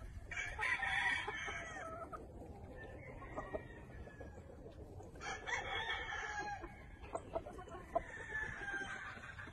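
Gamefowl roosters crowing several times in long calls, with clucking from the flock in between.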